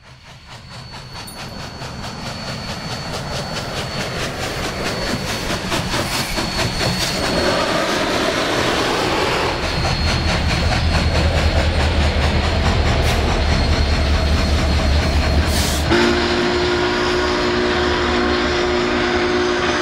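Union Pacific 844 steam locomotive coming on at speed, its rapid exhaust beats growing louder over a heavy rumble of wheels and running gear. Near the end the sound changes suddenly to a steady multi-note horn chord as the train passes.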